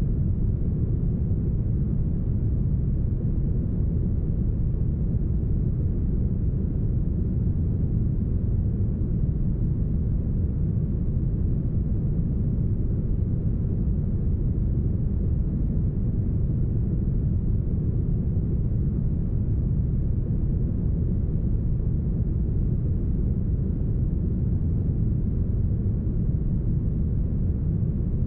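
Deep, heavily smoothed brown noise: a steady, even rumbling hiss with its weight in the bass and almost nothing high, unchanging throughout.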